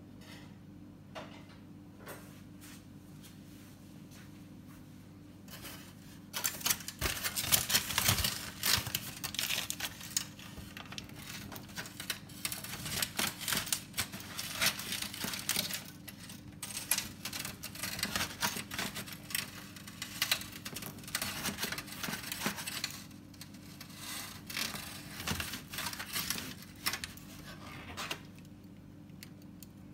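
Aluminium foil crinkling and rustling as it is pulled back from a cooked rack of beef ribs, starting about six seconds in, loudest at first and going on in irregular spells until near the end. A steady low hum runs underneath.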